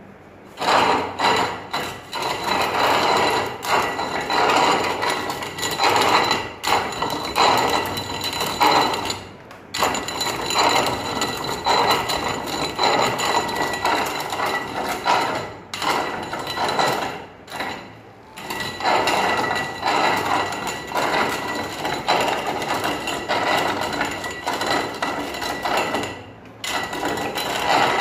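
Manual coffee grinder being hand-cranked, its burrs crunching through coffee beans in a dense, gritty rattle. It starts about half a second in and stops briefly a few times.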